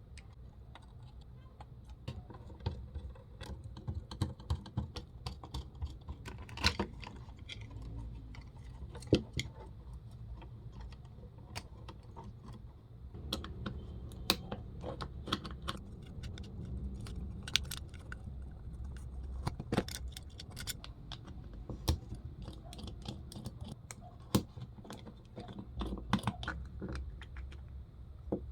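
Irregular sharp clicks, taps and light rattles of small hard parts being handled and knocked together, over a low rumble of handling noise.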